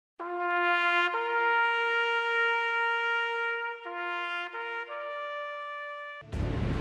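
A bugle call played on a bugle: a short low note, then a long held note a step higher, then three shorter notes climbing. Near the end it is cut off abruptly by loud music.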